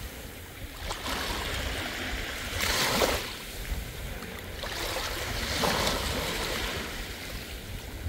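Sea waves washing onto a beach, the surf swelling and fading every few seconds, loudest about three seconds in.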